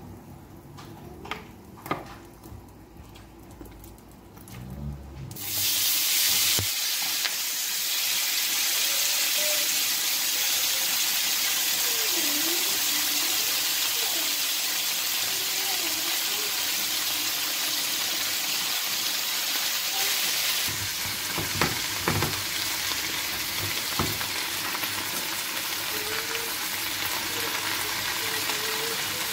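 Drumstick leaves frying in hot oil in a pan: a steady sizzle that starts suddenly about five seconds in, with a few knocks of the wooden spatula as they are stirred.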